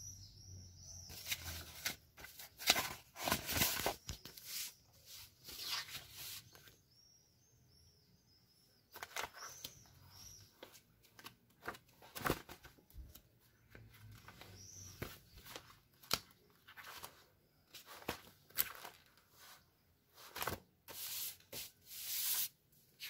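Paper rustling as notebook and textbook pages are turned and loose sheets are shuffled, in a string of short brushes and flutters with brief pauses between them.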